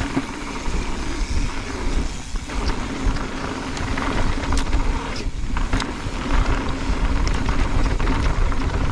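Mountain bike descending a dirt and gravel trail: heavy wind rumble on the camera microphone with tyres crunching over loose dirt and small rattles and clicks from the bike over bumps. The noise dips briefly twice, about two and five seconds in.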